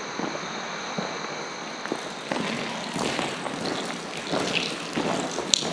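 Footsteps crunching along a trail, irregular and getting busier and louder about two seconds in. Faint insects buzz in the first couple of seconds.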